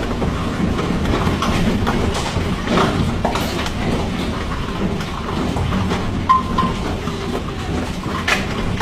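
Hailstones and rain pelting hard surfaces in a dense, steady patter of many small impacts.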